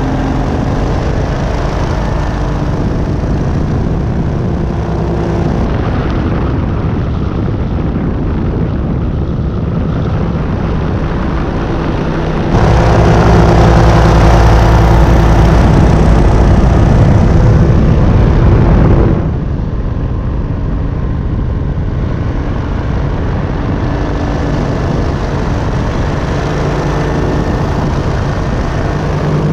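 Buckeye Dragonfly powered parachute's engine and propeller running steadily in flight. About midway the sound jumps suddenly louder for roughly six seconds, then drops back just as suddenly.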